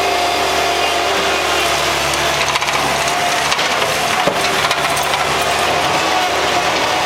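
Bobcat skid steer running steadily under load with a steady whine while breaking and moving concrete slab, with a few sharp knocks of concrete a few seconds in.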